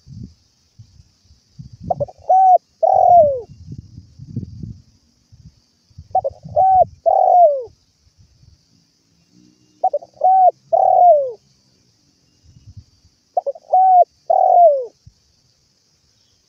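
Spotted dove cooing: four phrases, about one every four seconds, each made of a couple of short coos and then a longer falling coo. There is low rumbling noise under the first two phrases.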